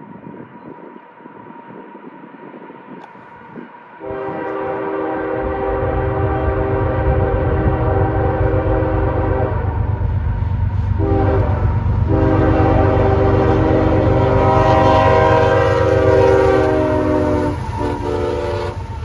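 Freight locomotive's multi-note air horn sounding a series of long and short blasts, the first lasting about five seconds, over the deep rumble of the locomotive and train as it comes closer.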